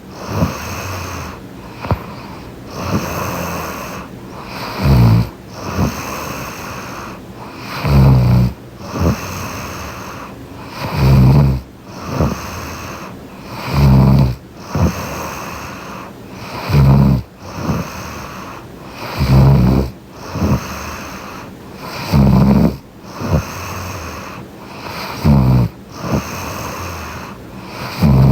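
A woman snoring in her sleep, recorded up close: a loud, low, rattling snore about every three seconds, with softer breathing between snores.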